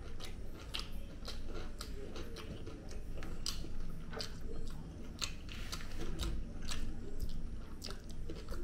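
A person chewing chicken biryani eaten by hand, with many irregular short mouth clicks and smacks.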